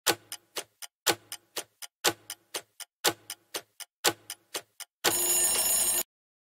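Countdown timer sound effect: a clock ticking about four times a second, the first tick of each second loudest, for five seconds, then a buzzer sounds for about a second as the count reaches zero.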